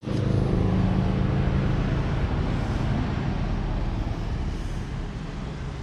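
Steady mechanical running noise with a low hum, loudest at first and slowly fading.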